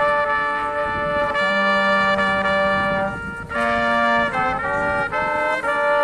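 Brass trio of two trumpets and a trombone playing a slow tune in long held chords, with a short break about three seconds in and quicker note changes after it.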